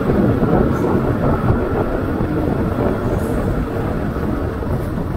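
Kawasaki ER-6n's 650 cc parallel-twin engine running as the motorcycle cruises, mixed with a steady rush of wind and road noise.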